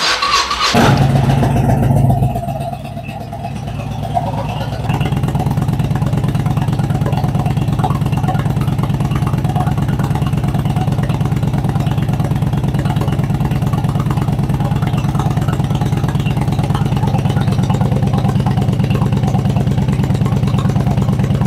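Honda Shadow VT1100's V-twin engine starting: it catches right at the start, revs for a couple of seconds, then settles into a steady idle that steps up slightly about five seconds in. It runs through a freshly re-welded exhaust that has a slight leak at the weld.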